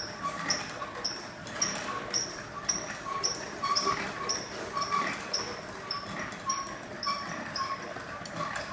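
Wooden silk-reeling frame squeaking as it turns while reeling silk from cocoons, a short high squeak about twice a second in a steady rhythm.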